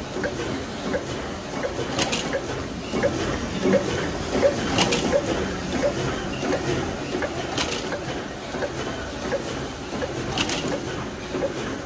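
Shiki 30MDFU flatbed label press running roll to roll: quick, even mechanical knocking, with a louder sharp stroke about every three seconds.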